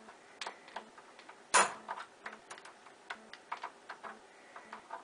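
Bump key being tapped and worked in a Schlage deadbolt cylinder, an attempt to jump the pins to the shear line: irregular small metallic clicks, with one louder knock about a second and a half in.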